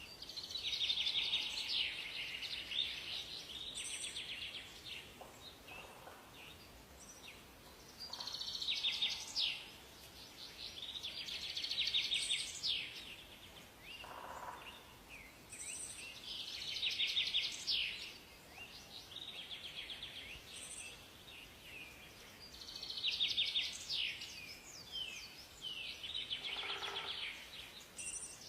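Songbirds singing in a forest: phrases of rapid trilled song come every few seconds, with short, higher calls between them.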